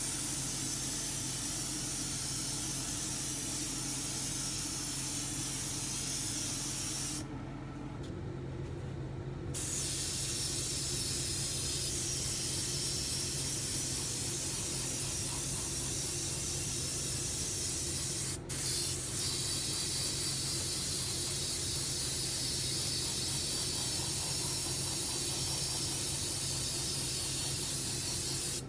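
Airbrush spraying paint: a steady hiss of air, which cuts out for a couple of seconds about seven seconds in and again for an instant around eighteen seconds. A steady low hum runs underneath.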